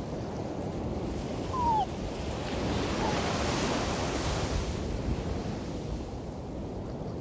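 Small sea waves washing onto a sandy beach, one wave swelling and breaking about three seconds in, with wind on the microphone. About a second and a half in, a short high cry drops in pitch.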